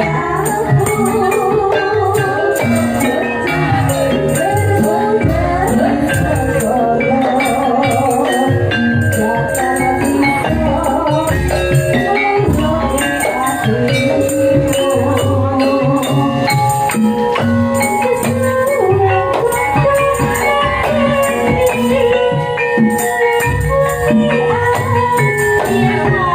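Gajah-gajahan folk music: a woman singing over a band with tambourine jingles and a steady drum beat, playing without a break.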